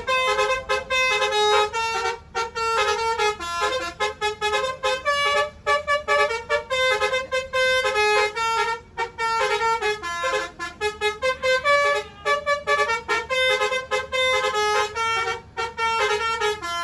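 A bus's basuri telolet horn, a multi-tone musical air horn, playing a long, fast melody of stepping notes. It stops abruptly at the end.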